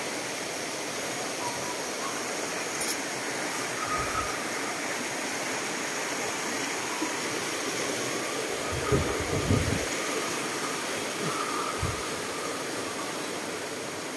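Steady rushing of a rocky mountain river, with a few dull low thumps scattered through.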